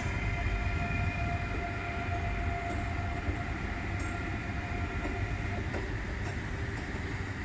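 Two coupled Regio 2N double-deck electric trains running past on the platform track: a steady low rumble of wheels on rail, with a faint steady whine above it.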